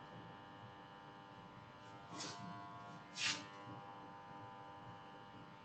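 Faint steady electrical buzz made of many even tones, with two short hissy sounds about two and three seconds in.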